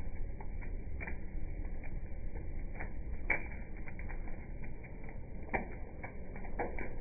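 Charcoal briquettes burning in a grill with tall open flames: a low steady rumble of fire with irregular crackles and pops. The sharpest pops come a little past three seconds and about five and a half seconds in.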